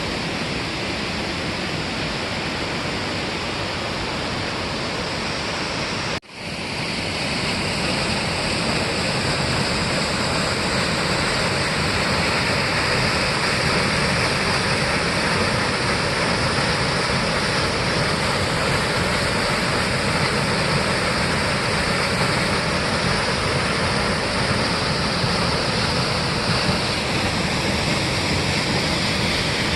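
Waterfall rushing, a steady roar of falling water. About six seconds in it breaks off for an instant and comes back slightly louder.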